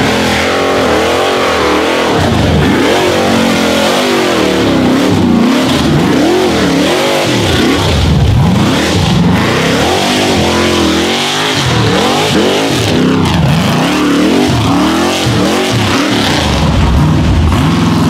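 Rock bouncer race buggy's engine revving hard as it climbs a steep dirt hill, the pitch rising and falling again and again as the throttle is blipped on and off.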